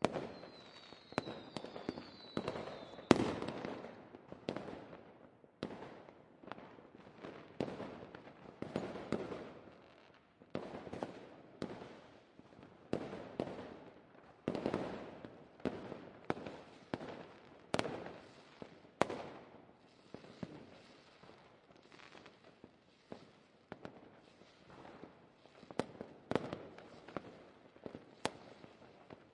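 Fireworks going off in a continuous barrage of sharp bangs, each with a short rumbling decay, about one or two a second, the loudest about three seconds in. A high whistle sounds over the first few seconds.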